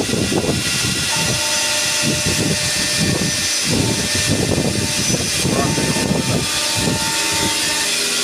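CNC machine running under load: a steady mechanical drone with several held tones, and rougher low surges coming and going every second or so as it cuts.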